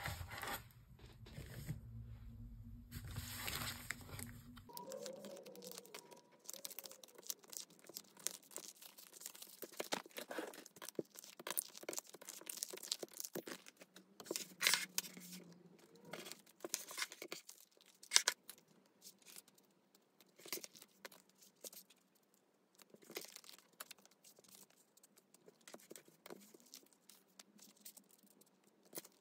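Clear plastic photocard sleeves crinkling and rustling as cards are slid into them by hand, with many small irregular crackles and clicks. A low steady hum cuts off about five seconds in.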